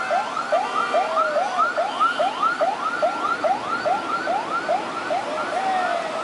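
Escort siren yelping, with quick rising sweeps repeating about three times a second and a few falling swoops mixed in near the end.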